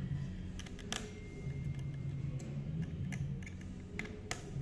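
Light, irregular clicks and ticks of a precision screwdriver on the tiny screws and metal frame of an opened iPhone, the sharpest about a second in and near the end, over a steady low hum.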